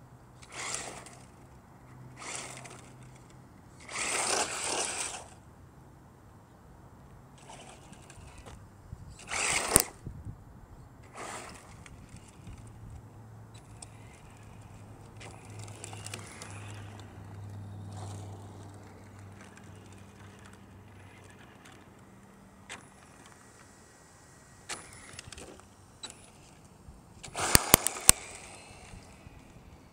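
Tamiya TA02 electric radio-controlled car driving on asphalt, heard in short bursts of motor whine and tyre noise each time it passes close. The loudest passes come about four to five seconds in, just before ten seconds, and near the end, where a few sharp clicks stand out.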